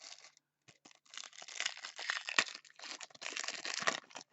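Foil trading-card pack being torn open and crinkled by hand, a run of crackling and tearing that starts about a second in.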